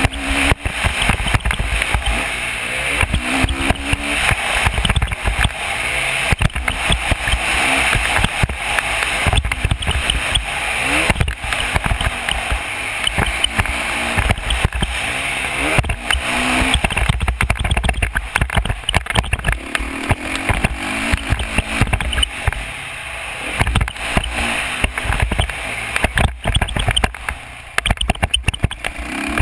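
Dirt bike engine rising and falling in pitch as the rider works the throttle around the track, heavily buried in wind buffeting on a helmet-mounted microphone.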